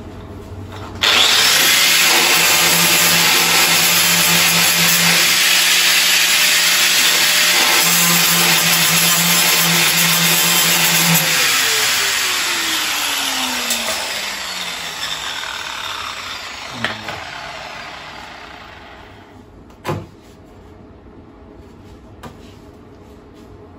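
Angle grinder starting about a second in and grinding the steel sill of a car, then switched off about halfway through, its pitch falling as the disc spins down. A couple of sharp knocks follow near the end.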